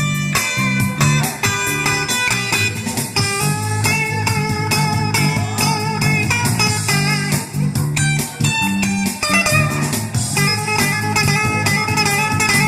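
Music: a melody of held notes over a repeating bass line.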